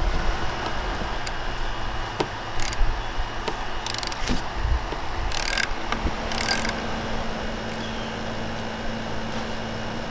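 Socket wrench ratcheting on a car battery terminal nut in a few short rasping bursts, with scattered clicks, over a steady low background rumble.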